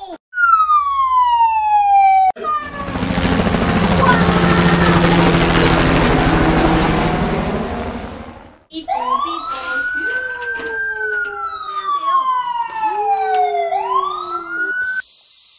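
A falling whistle lasting about two seconds, then a long rushing noise with a low steady hum that swells and fades. Then a toy fire engine's siren (a Lego Duplo fire truck) wails up and down: a slow rise, a long fall and a rise again.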